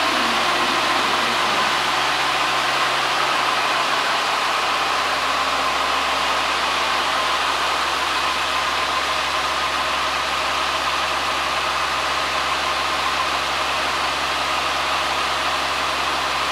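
Diesel railcar idling while it stands at the platform: a steady, unchanging engine noise with a constant hiss.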